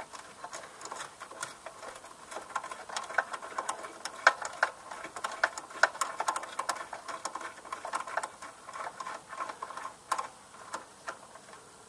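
Irregular light clicks and metallic ticks of hand tools working on the ATV's bolts and fittings, several a second, busiest through the middle.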